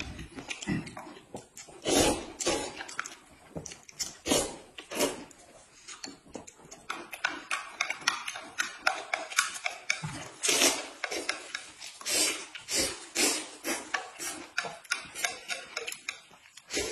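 Close-miked eating: noodles being slurped and chewed, with many short, irregular mouth smacks and clicks, several a second, some louder than others.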